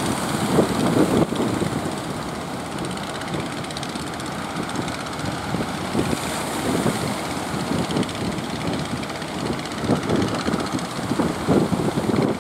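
A fishing boat's engine running under way, mixed with wind and water noise that rises and falls irregularly.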